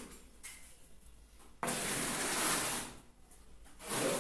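Rough scraping as something is dragged over a floor being tiled and its mortar bed. One scrape starts suddenly about a second and a half in and lasts just over a second, and a second one swells up near the end.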